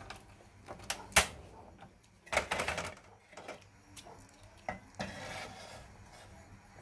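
A single-burner gas stove being lit: a sharp click of the control knob about a second in, then a short burst of rapid igniter clicking as the burner catches, followed by a few lighter knocks as a steel wok is set on the burner.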